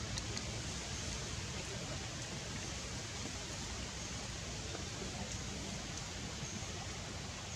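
Steady hiss, even across the whole range, with no distinct events.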